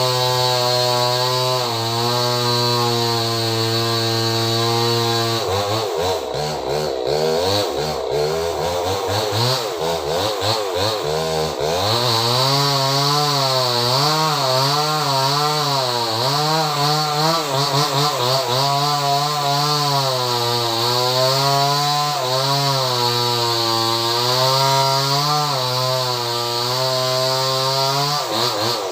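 Small chainsaw running at high revs, then cutting into a large tree trunk from about five seconds in, its engine speed dipping and wavering under the load of the cut. It steadies again near the end.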